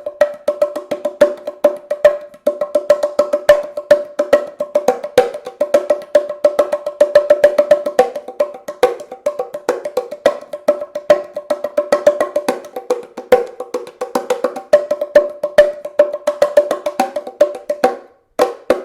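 Wooden bongo cajon played in a fast, steady stream of strikes that ring at a few distinct pitches, high and low notes alternating. The playing stops just before the end.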